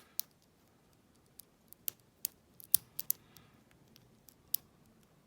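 Scattered, irregular sharp metal clicks of a lock pick and tension wrench being worked in the keyway of an Enoch pin-tumbler padlock with standard pins.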